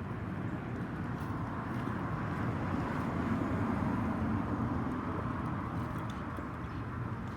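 A vehicle passing: a low rumble and hiss that swells toward the middle and fades again.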